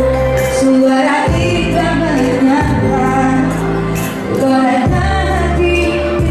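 Music with a woman singing a melody over held bass chords that change every second or two.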